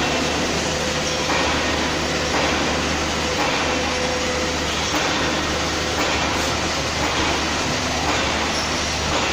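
CNC turning centre running as it machines a part: a steady, dense hiss over a low hum, with a faint tone that comes and goes.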